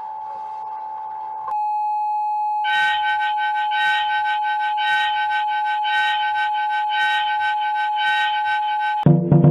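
Electronic emergency alert alarm: a steady single tone that goes clean about a second and a half in, then from a little under three seconds a higher, brighter tone pulsing about twice a second over it. The alarm cuts off abruptly near the end and loud keyboard-like music begins.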